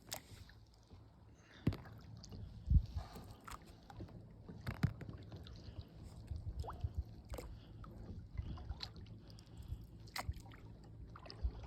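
Kayak on the water: scattered paddle splashes and knocks, over a low steady rumble. The loudest knock comes about three seconds in.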